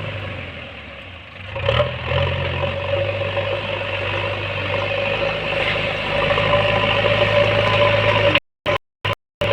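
JCB backhoe loader's diesel engine running steadily. It eases off briefly, then picks up again with a short clatter about a second and a half in. Near the end the sound breaks off several times in brief silent gaps.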